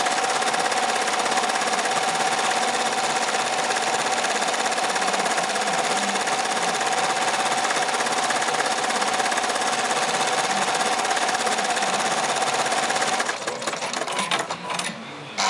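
2005 Amaya 16-needle commercial embroidery machine stitching at speed: a rapid, even needle clatter with a constant whine. About 13 seconds in the stitching stops, and a few irregular clicks follow as the machine comes to rest.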